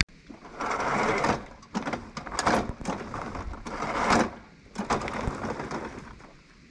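A push lawn mower, its engine not running, rolled back and forth against a tree stump that sticks up too high for it to clear. The mower deck and wheels scrape and knock in several short bursts.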